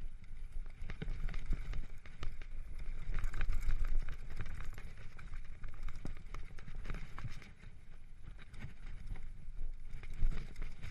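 Mountain bike rolling down a dirt and gravel singletrack: tyre noise on the ground with many short clicks and rattles from the bike, over a low rumble of wind on the microphone. It goes quieter for a moment past the middle.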